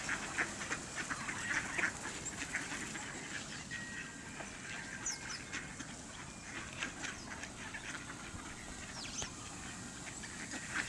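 A group of mallards quacking and calling on and off, with a few short, high chirps from other birds among them.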